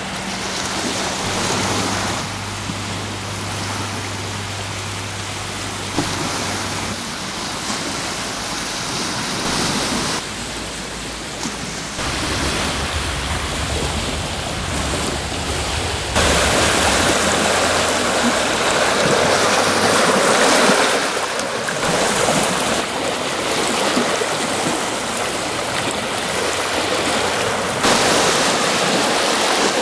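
Small sea waves washing onto a shingle shore and over flat rocks at the water's edge, a steady rushing surf that grows louder about halfway through. A low steady hum runs underneath for part of the time.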